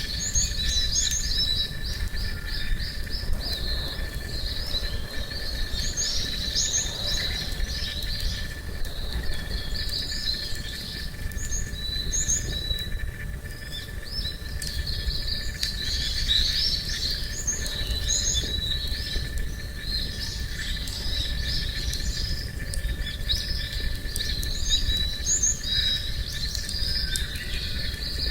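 Small birds chirping and singing in a busy, continuous chorus, over a steady low rumble and a faint thin high tone.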